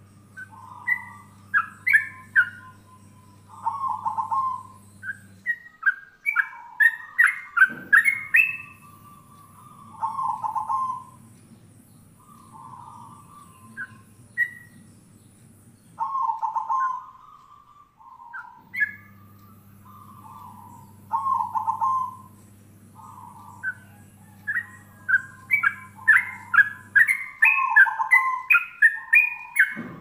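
Caged songbirds calling back and forth: a yellow-vented bulbul and a zebra dove. Several runs of quick chirping notes that climb in pitch alternate with lower, bubbling calls that come roughly every six seconds.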